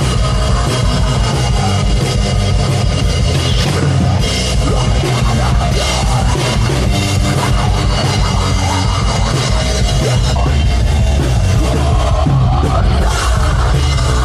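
Loud heavy metal music with a drum kit, playing without a break.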